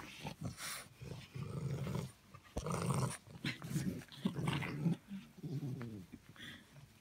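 English bulldog puppy growling in a run of short, low, rough growls while tugging on a shoe.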